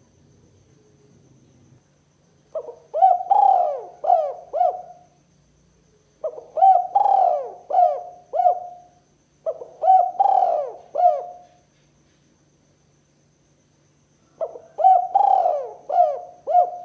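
Spotted dove cooing: four phrases of several short throaty coos each, a few seconds apart.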